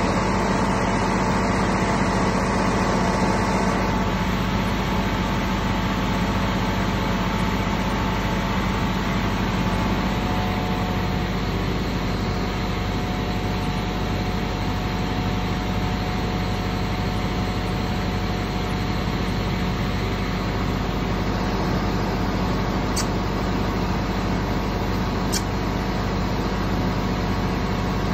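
Steady mechanical drone of a running engine, holding the same pitch throughout.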